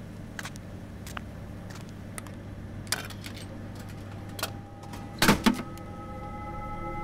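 Drink vending machine humming steadily, with scattered small clicks as its selection buttons are pressed. About five seconds in, a can drops into the delivery tray with two loud knocks in quick succession. Soft music fades in over the second half.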